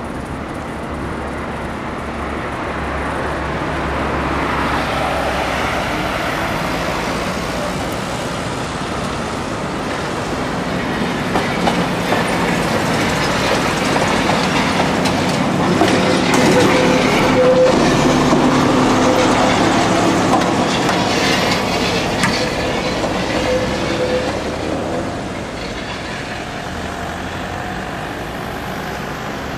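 ČKD Tatra tram passing close by, its sound swelling to a peak about halfway through and then fading, with a steady whine and a run of sharp clicks from the wheels on the track at its loudest.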